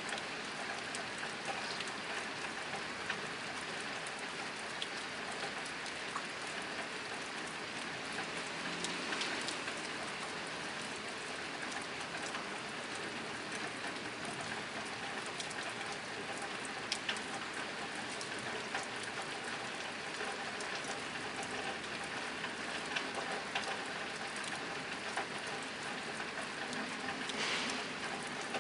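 Steady rain drumming on a tin roof, a dense patter of drops with many small sharp ticks from individual drops hitting the metal.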